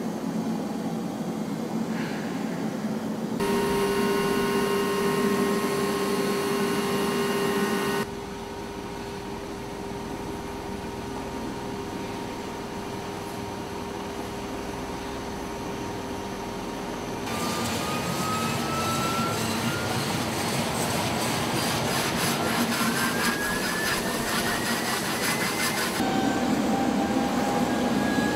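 Bell Boeing V-22 Osprey tiltrotor's two Rolls-Royce T406 turboshaft engines and proprotors running on the ground: a steady turbine whine over rotor noise, changing abruptly several times. In the second half the whines rise slowly in pitch as the engines speed up.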